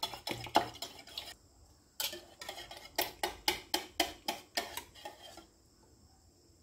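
Stainless-steel wire whisk beating eggs in a ceramic bowl, the wires clicking against the bowl in quick, regular strokes. The whisking pauses briefly after about a second and a half, picks up again at about three strokes a second, and stops about five and a half seconds in.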